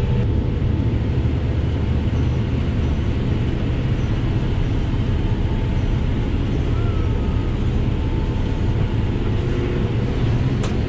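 Kubota M7-171 tractor's four-cylinder diesel running steadily under load while pulling a potato vine shredder: an even drone with a faint steady hum above it.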